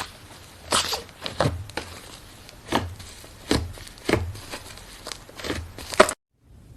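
Slime being squeezed and pressed: a series of short squishes, roughly one a second, that cuts off suddenly near the end.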